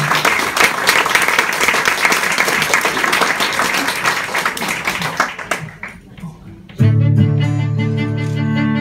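Audience applauding, dying away about five seconds in. After a brief hush, a guitar and string quartet start playing together near the end, with plucked guitar over held string notes.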